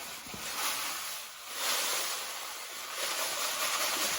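Granular oil absorbent (Speedy Dry) being poured onto the shop floor to soak up spilled engine oil: a rushing hiss that swells and eases about three times.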